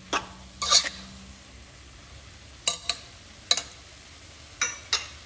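A utensil scraping and clinking against the side of a stainless steel pot as spaghetti is stirred and tossed: about seven short, sharp strokes at irregular spacing.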